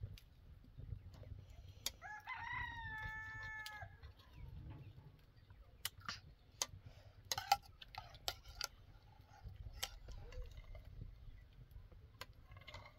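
A rooster crows once about two seconds in, a call that rises and then holds for about two seconds. Afterwards, metal spoons click against plates several times.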